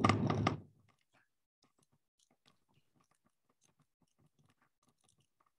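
A short rustling burst of microphone handling noise, followed by faint scattered clicks and crackles as the video-call camera is moved by hand.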